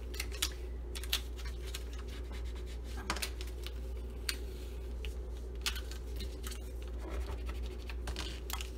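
Fingers pressing and rubbing vinyl transfer tape onto a clear plastic sheet: scattered scratchy rubs, crackles and small clicks of plastic film, over a steady low hum.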